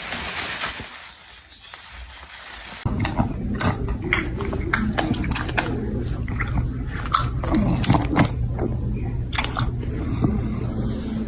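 Irregular sharp crunching clicks over a steady low hum, starting suddenly about three seconds in after a fading hiss.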